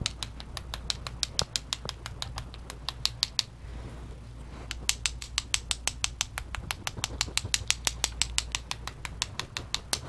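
A watercolour paintbrush tapped rapidly against a pencil, about six light clicks a second, flicking paint splatter off the brush. The tapping stops briefly a little after the third second, then resumes.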